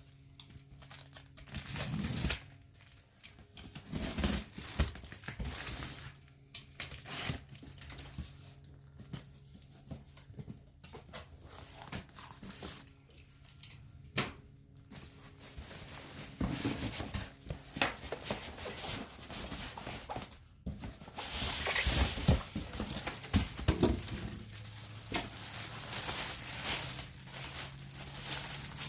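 Unboxing a new air hose reel: cardboard and plastic packaging tearing and crinkling, with irregular knocks as it is handled, over a faint steady low hum.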